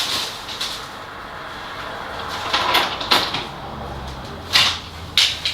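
Handling noise of small hard objects being moved about, rubbing with several sharp clicks and knocks, the loudest about halfway through and near the end.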